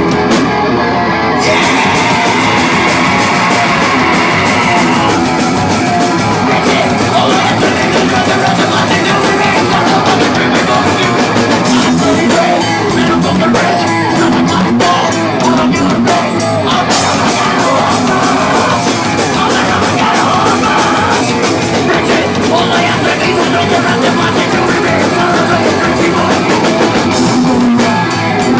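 Live thrash-punk band playing loud: electric guitar over a drum kit.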